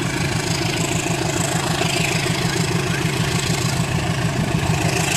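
Diesel locomotive engine running with a steady low throb as it hauls a passenger train slowly along the track.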